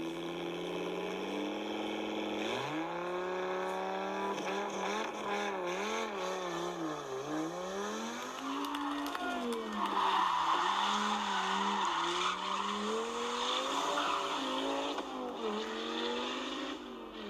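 Car engine revving, its pitch swinging up and down again and again as if the car is being driven hard. A hiss of tyre noise swells for a few seconds in the middle.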